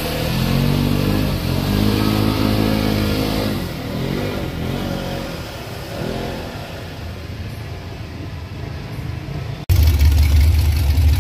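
Side-by-side UTV engine revving hard as it drives through deep mud, its pitch rising and holding, then easing and fading as it pulls away. About ten seconds in, a sudden cut to the louder, deep running of a lifted mud truck's engine.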